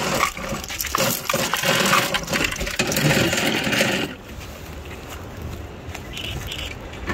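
A belt of machine-gun cartridges clinking and rattling as it is dragged out of a metal hatch, a dense run of jingling clicks that stops about four seconds in.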